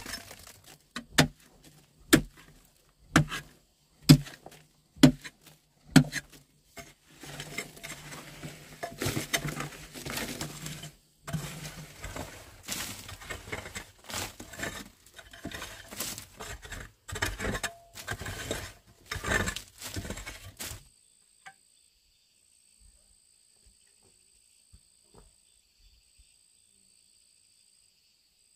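A short-handled hoe strikes a shale and clay bank about once a second, knocking loose rock that rattles down, then scrapes and drags loose soil and stones in a steady clatter. About 21 seconds in the digging stops, leaving only insects trilling steadily at a high pitch.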